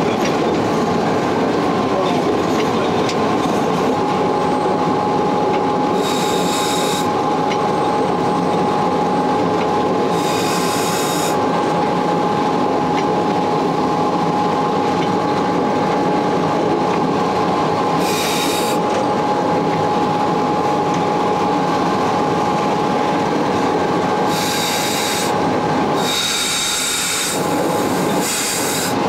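Running noise inside the cab of the 1932 Sécheron T9 electric locomotive: a steady rumble of the running gear with a constant hum, broken about six times by short high-pitched squeals.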